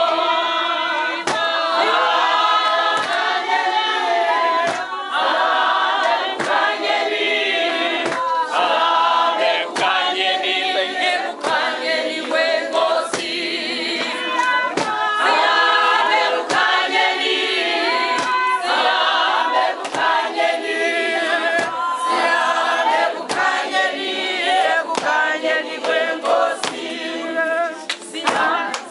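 A choir of men and women singing together, with a sharp beat keeping time about every one and a half to two seconds.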